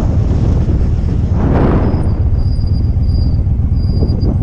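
Heavy wind rumble on a helmet-mounted camera's microphone while riding a motorcycle, with a louder gust about a second and a half in.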